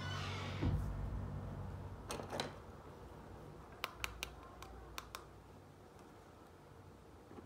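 Small plastic toy pieces being handled and set down on a cloth: a soft thump about a second in, a brief rustle, then a quick run of about six light, sharp plastic clicks and taps near the middle.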